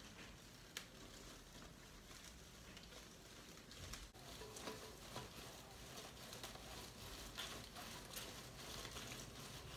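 Very faint rustling and light crackling of pothos leaves and potting soil being handled, with a single soft click about three-quarters of a second in.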